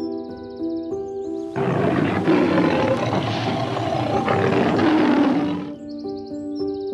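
A lion roaring once, a long rough roar of about four seconds that starts a second and a half in, over background music.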